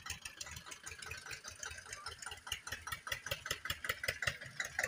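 Tractor's diesel engine running with an even, rhythmic beat as it pulls a trailer loaded with sugarcane.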